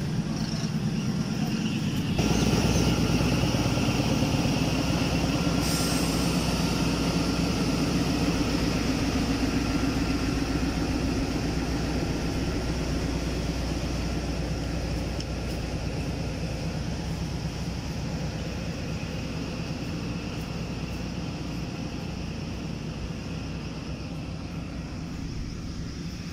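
Diesel locomotive of a Pakistan Railways passenger train running at close range, a steady low rumble with held engine tones. It steps up in level about two seconds in, then slowly fades.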